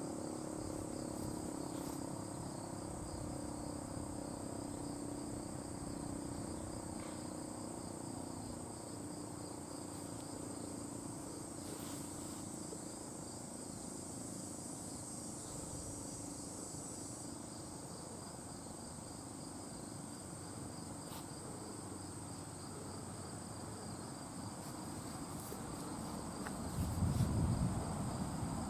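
Insects trilling steadily in a high, even tone. A faint low hum fades out about halfway through, and near the end wind buffets the microphone with a loud low rumble.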